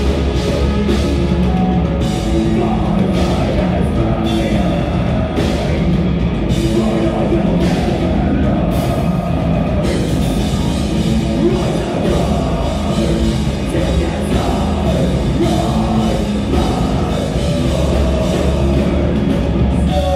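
Metalcore band playing live at full volume: heavy distorted guitars and bass over pounding drums with cymbal crashes, and vocals at times.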